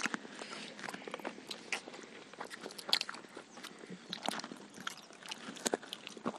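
Several people chewing and biting into chicken with biryani rice, making many irregular small clicks and crunches of mouth noise.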